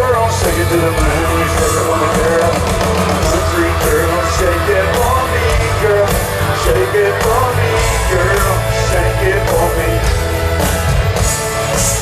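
Live country-rock band playing loudly, with electric guitar and a steady beat.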